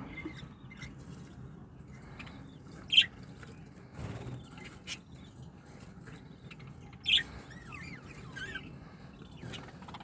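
Budgerigar chirps: short sharp calls, the loudest about three seconds in and again about seven seconds in, followed by a few warbling notes that bend in pitch. Faint scratchy rustling of the nest bedding runs between the calls.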